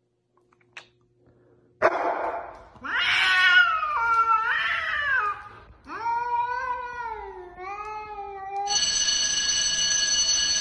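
A cat yowling: a short noisy burst, then two long drawn-out calls that waver up and down in pitch. Near the end a steady high ringing tone takes over.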